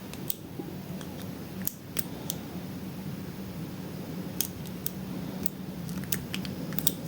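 Lock pick working the pins of a pin-tumbler lock held under tension: about ten scattered small metallic clicks and ticks as the pick probes and sets pins, over a faint steady low hum.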